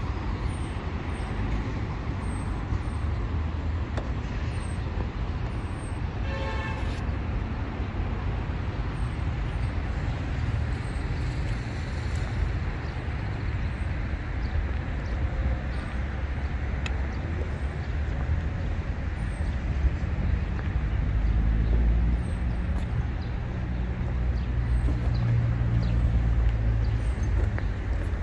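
Steady low rumble of city road traffic, swelling twice in the second half as vehicles pass. A short toot-like tone sounds about six seconds in.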